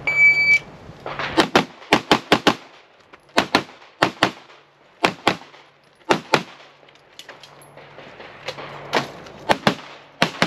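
Electronic shot-timer start beep, a single tone lasting about half a second, then handgun shots fired mostly in quick pairs (double taps), about ten pairs with short gaps between groups as the shooter moves between positions.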